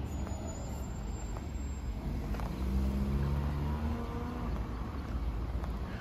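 A car driving past on the street, its engine hum swelling about halfway through over a steady low traffic rumble.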